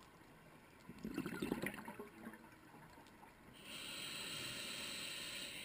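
A scuba diver's regulator breathing underwater: a burst of bubbling exhaust about a second in, then a steady hiss from about halfway that stops near the end, typical of an inhale through the regulator.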